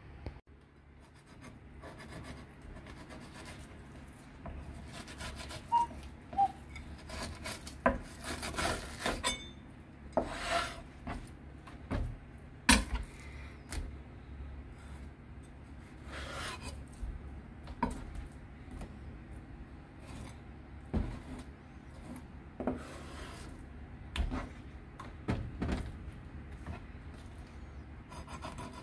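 Kitchen knife working a fish on a wooden cutting board: irregular scraping strokes with occasional sharp knocks of the blade on the board.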